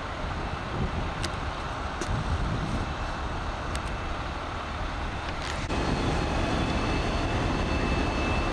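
Fire engines running at a brush-fire scene: a steady low engine rumble. About two thirds of the way through it jumps suddenly louder, and a steady thin high whine joins it.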